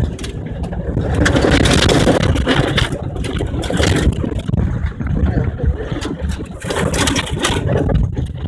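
Cabin noise of a Subaru 4x4 driving fast along a wet gravel and mud track: engine running under steady load, tyres splashing through mud and crunching over gravel, with many knocks of stones and muddy spray hitting the car. It gets louder about a second in.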